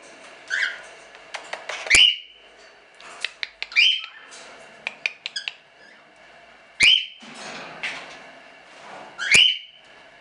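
Cockatiels calling: four loud, shrill calls, each a quick upward sweep ending on a short held note, with a few short clicks in between.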